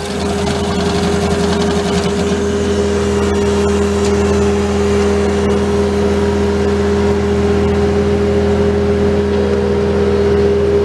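Diesel engine of a Bobcat T630 track loader running steadily at high revs, driving a hydraulic stump grinder. A rough grinding of wood fades out in the first couple of seconds, leaving the engine's steady drone.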